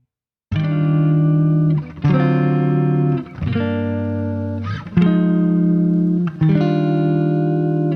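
Background music: sustained chords, starting about half a second in after a brief silence, changing every second or so.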